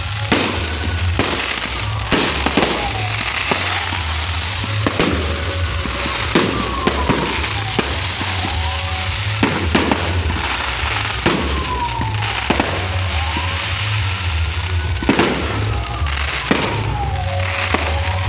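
Aerial fireworks display: a rapid, irregular series of sharp bangs from shells bursting, over a continuous crackling hiss of burning effects.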